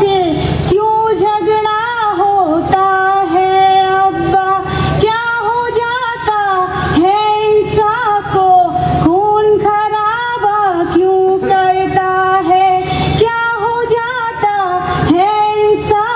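A girl singing a Hindi song solo into a microphone, her voice holding long notes that bend and waver between short breaks for breath.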